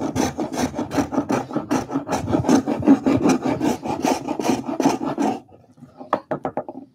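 Small metal spokeshave cutting shavings from the hollow of a wooden chair seat in quick short strokes, about five a second. The strokes turn fainter and sparser over the last second and a half.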